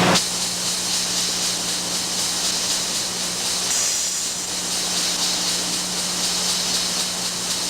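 Steady hiss with a low, even hum underneath.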